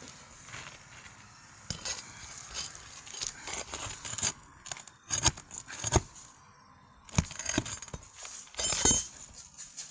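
Irregular knocks, clinks and crackling scrapes of hand-tool work on asphalt shingles as they are pried loose and pulled up. The sharpest knocks come about five, six and seven seconds in, with a burst of crackling just before the end.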